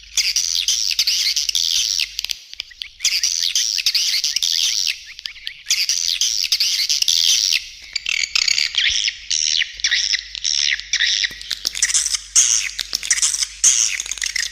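Swiftlets twittering as a colony: dense, rapid high chirps in bursts of about two seconds with brief breaks, turning into shorter, choppier bursts about eight seconds in. It is a swiftlet calling-sound recording of the kind played from bird-house speakers to lure swiftlets in.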